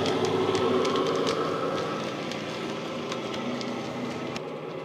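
Model Class 68 locomotive's DCC sound decoder playing diesel engine sound through a large EM2 speaker. The sound fades as the train moves away, with irregular light clicks from the coach wheels on the track.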